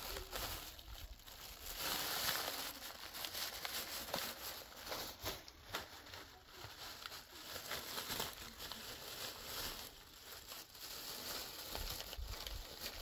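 Thin clear plastic bag crinkling and rustling in irregular bursts as a small child rummages through the things inside it.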